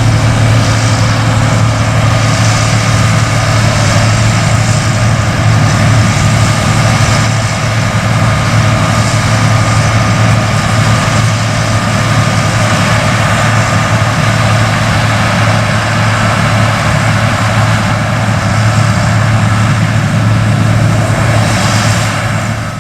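John Deere 8820 Titan II combine running steadily while harvesting corn: a constant low engine drone with an even wash of mechanical noise above it.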